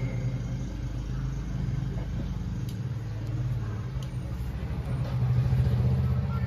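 Steady low rumbling hum with no speech or music, swelling slightly about five seconds in.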